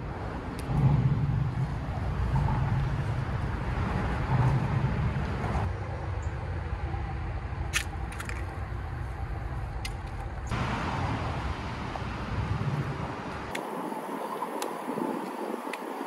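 Outdoor background noise: a low rumble of distant road traffic with a steady hiss, switching abruptly to a slightly different background a few times.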